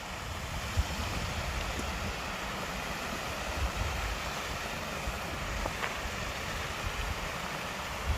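Creek water rushing steadily over a small old mill dam, with wind buffeting the microphone in low rumbles.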